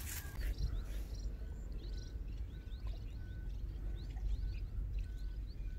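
Outdoor pond-side ambience: a steady low rumble under small birds chirping, with a short high note repeating about twice a second.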